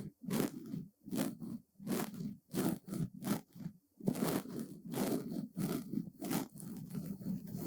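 Brush bristles stroked across a surface in short, repeated sweeps, about two strokes a second, each a brief scratchy swish.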